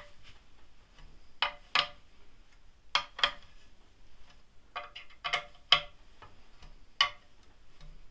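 Sharp metallic clicks and clinks of a screwdriver with a Torx bit working stainless steel screws tight into a hydrofoil's wing and fuselage. About a dozen short ringing ticks, often in pairs, come at irregular intervals.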